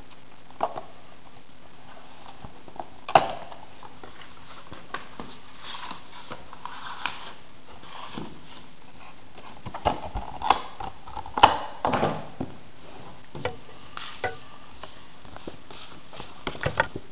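A clear plastic case and its plastic wrapping being handled and opened: crinkling and rustling with a few sharp clicks and snaps, the loudest about three seconds in and again around ten to eleven seconds in.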